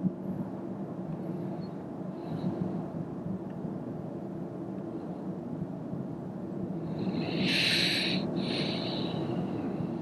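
Steady road and tyre rumble heard inside the cabin of a Toyota Corolla 125h hybrid driving along an open road. About seven seconds in, a brief high hiss in two parts rises over it.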